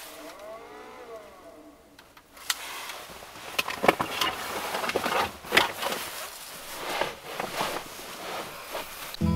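Fabric rustling with soft knocks and clicks as a blanket is gathered up and moved about in a van's small cabin, busiest from about two seconds in. A brief faint tone that rises and falls comes before it.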